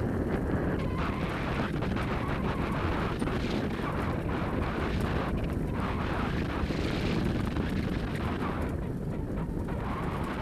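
Steady rolling rumble of a wheeled dog-drawn rig on a dirt trail, with many small rattles and clicks from the ride and wind buffeting the microphone.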